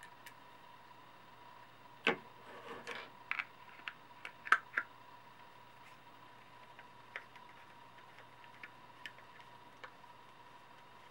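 Hand handling of hard plastic parts and a screwdriver: a cluster of sharp clicks and knocks about two to five seconds in, then sparse light ticks as a screw is driven through a Kydex sheath into a Tek-Lok belt clip.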